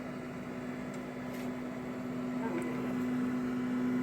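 Qidi X Plus 3 Core XY 3D printer humming steadily while its platform and nozzle initialize at first power-up. The hum grows slowly louder, with a couple of faint ticks.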